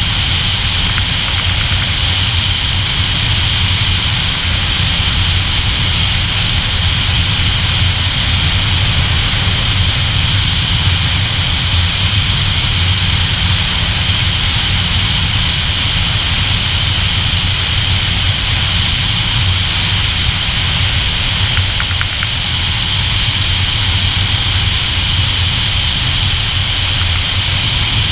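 Motorcycle running steadily at cruising speed on a road ride, its engine's low hum mixed with steady wind and road noise, with no change in speed.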